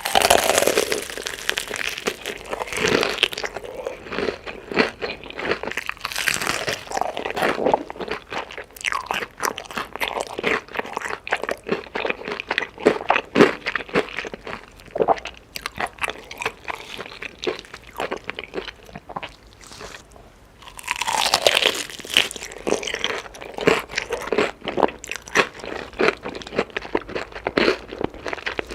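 Close-up eating of chicken: crunchy bites and steady chewing, with two louder stretches of crunching, one at the start and one about three quarters of the way through.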